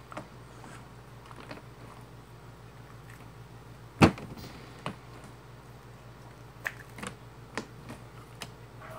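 Homemade glue slime being stretched and dropped onto a tabletop by hand: scattered small clicks and pops, and one loud slap about four seconds in, over a faint steady hum.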